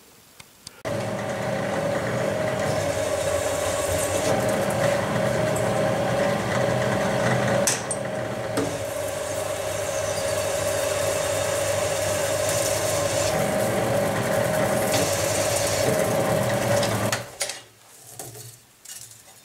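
Drill press running with a piloted counterbore cutting a 2 mm deep bearing recess into a 6 mm aluminum plate: a steady motor hum with cutting noise. It starts about a second in and stops shortly before the end.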